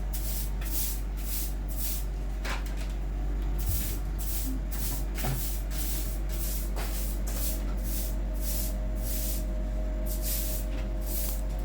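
Rhythmic brushing strokes while something is being cleaned, about two short swishes a second, over a steady low hum.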